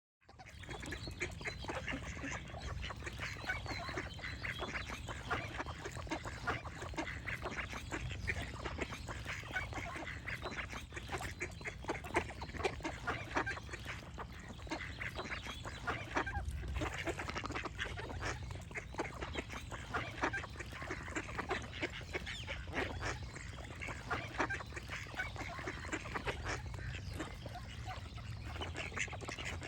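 A flock of ducks quacking and chattering without pause, many short calls overlapping.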